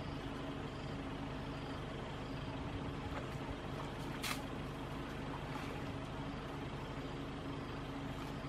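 Vehicle engine idling: a steady low hum, with one short sharp click about four seconds in.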